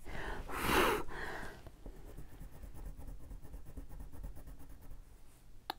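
A Crayola Swirl wax crayon is rubbed back and forth on paper to swatch a colour, giving a faint, dry scratching. There is a louder rustle in the first second or so and a sharp click just before the end.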